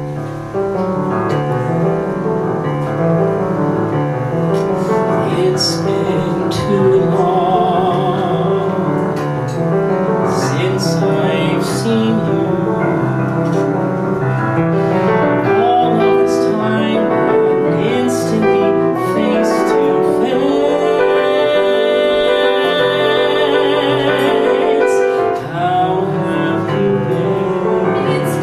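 Live piano playing with singing: a musical theatre duet for a woman's and a man's voice, with some notes held with vibrato.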